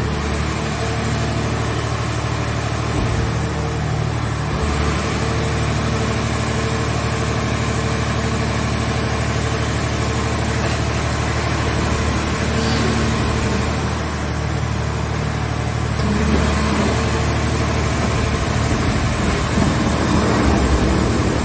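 Car scrap baler running steadily: its engine and machinery run at an even pitch, with a thin high whine that sags briefly twice, getting a little louder about two thirds of the way through.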